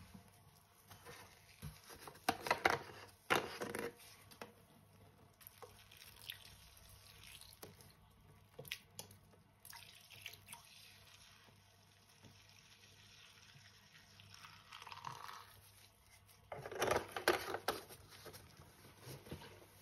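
Liquid all-purpose cleaner poured from a plastic bottle into a sink basin, a thin trickle with drips. Louder crackles and clicks of the plastic bottle and its cap being handled come about two seconds in and again near the end.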